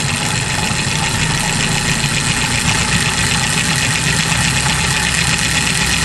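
Cable-driven test rig for a Smiths governor speedometer spinning at about 2,000 revs: the drive and the whirling governor make a steady, loud mechanical running noise.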